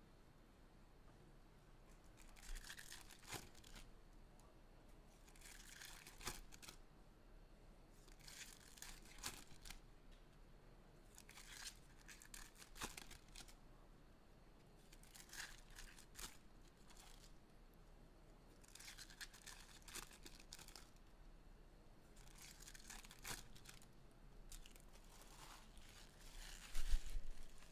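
Foil trading-card packs being torn open one after another: a short ripping and crinkling every three seconds or so, with a thump near the end.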